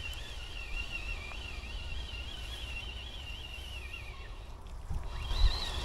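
Wind buffeting the microphone outdoors, with a thin, wavering high-pitched tone that stops about four seconds in and comes back near the end, and a single thump about five and a half seconds in.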